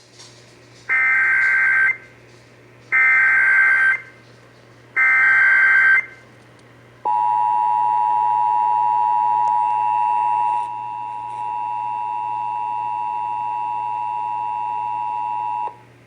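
Emergency Alert System tones heard over AM radio. Three one-second bursts of SAME digital header data come about a second apart. They are followed by the two-tone EAS attention signal, held steady for about nine seconds and a little quieter after its first few seconds, over a steady low hum.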